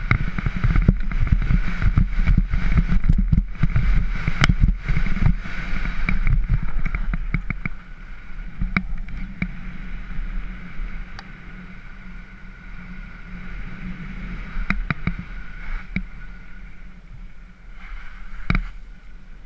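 Mountain bike descending a dirt-and-gravel trail, heard from a helmet-mounted camera: tyres on the dirt and the bike and camera mount rattling over bumps, over a steady low rumble. Rough and loud with many quick knocks for the first eight seconds or so, then quieter and smoother with only scattered knocks.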